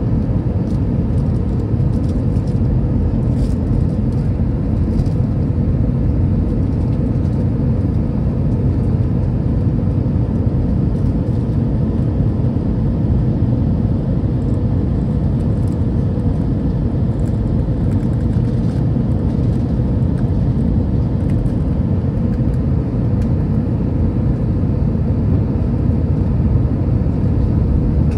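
Steady cabin noise inside an Airbus A319-100 on its approach to land, heard from a window seat over the wing: the engine hum and the rush of air over the fuselage blend into one even, low-heavy roar.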